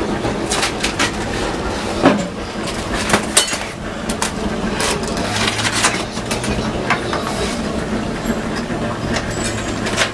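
Long metal hooks clinking and scraping against the inside of a clay tone oven as bread is pried off its hot walls: irregular sharp clicks and knocks, the loudest about two seconds in, over steady background noise.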